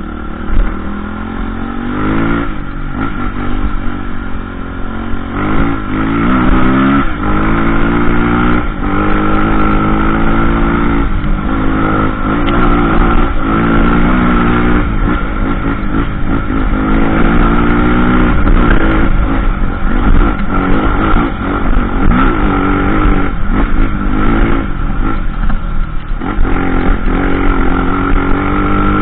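Trail motorcycle engine being ridden hard. Its pitch climbs repeatedly as it accelerates and drops back between pulls, every one to two seconds.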